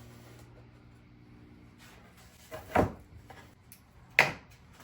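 Two sharp knocks of a melamine board being set against the miter saw, about a second and a half apart, the second the louder.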